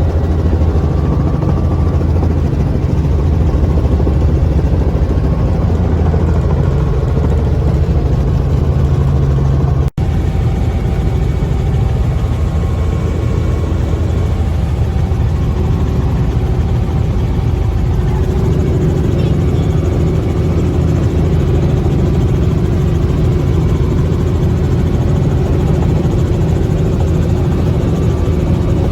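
Helicopter engine and rotor running, a loud steady drone that breaks off for an instant about ten seconds in.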